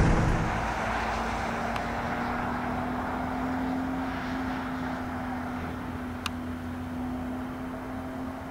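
A car's engine drone fading away just after a close pass, a steady engine note that dies down as the car drives off into the distance.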